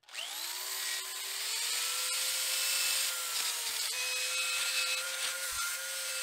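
Electric drill with a wheel attachment spinning up and grinding a small steel ratchet part held in a vise. A whine rises over the first second and settles into a steady tone over harsh scraping noise, dipping slightly under load about three and a half seconds in.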